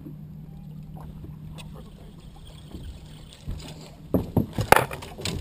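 A boat motor hums steadily and low, then fades out about three seconds in. From about four seconds in comes a run of loud, sharp knocks and clatter, the loudest sound here.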